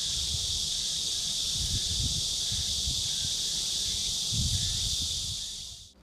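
Steady, high-pitched insect chorus, typical of summer cicadas in a forest, over an uneven low rumble. It fades out just before the end.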